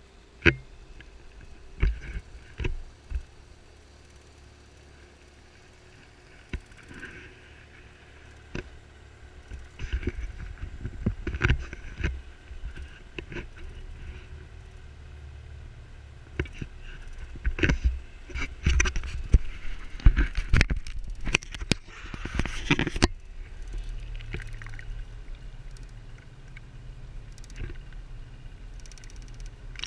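A boat under way: a steady low motor rumble with scattered knocks and rattles, most of them between the middle of the stretch and its last third.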